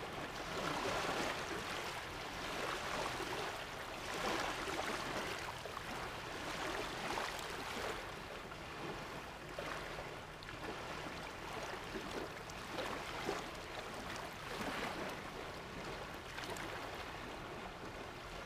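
Small waves lapping and washing onto a sandy lake shore, in irregular swells every couple of seconds.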